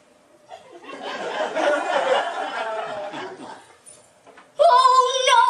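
Audience laughing, swelling about half a second in and dying away after about three seconds. Near the end a voice starts singing with long held notes, louder than the laughter.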